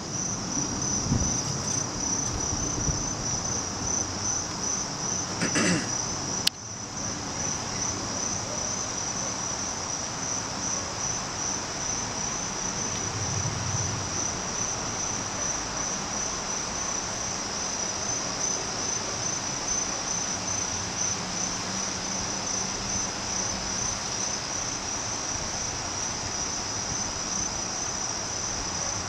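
Steady, high-pitched chorus of insects with a fast, even pulse. A single sharp click about six and a half seconds in.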